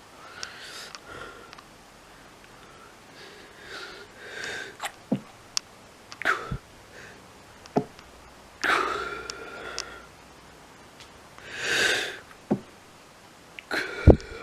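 A person sneezing over and over, about six breathy sneezes with voiced wind-ups, the loudest about nine and twelve seconds in. Short sharp clicks come between them.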